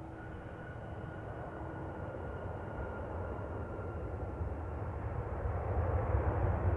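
Airbus A330-200 jet engines at takeoff power, the rumble steadily growing louder as the airliner takes off, with a faint whine that sinks slightly in pitch.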